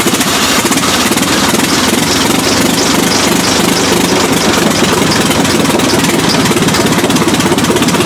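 The 1907 Fiat 130 HP Grand Prix car's 16-litre four-cylinder engine running steadily just after start-up, a fast, even beat of firing pulses.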